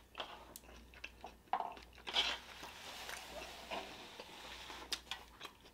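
A person chewing a mouthful of burrito close to the microphone: soft wet mouth clicks and smacks, a couple of them louder about two seconds in.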